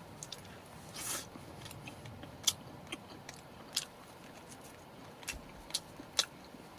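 Close-up eating sounds of a person chewing roast chicken: scattered sharp mouth clicks and smacks, with a short rustle about a second in.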